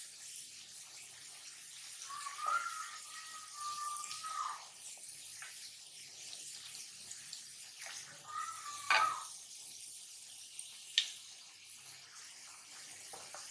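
Chopped garlic sizzling gently in oil in an aluminium karahi as it browns, stirred with a wooden spatula. A few sharp knocks come through, and two drawn-out squeaky tones, one about two seconds in and another just before nine seconds.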